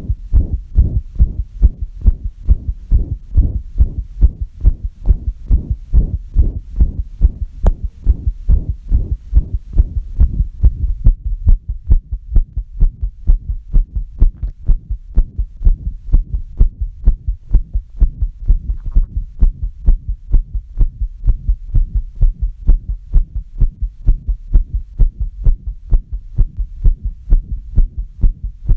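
A steady, regular train of low, deep thumps repeating at a few beats per second, with no break.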